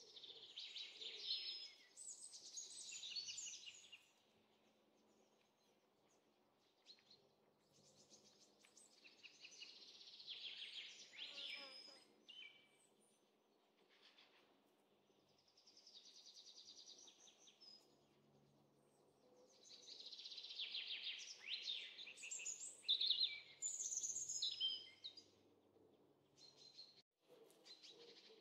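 Birds singing in bouts of rapid high trills and chirps, each a few seconds long, four or five times over, with quiet stretches between.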